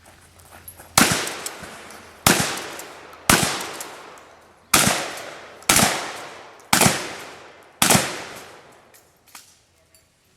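Seven single gunshots fired about a second apart, each echoing as it fades.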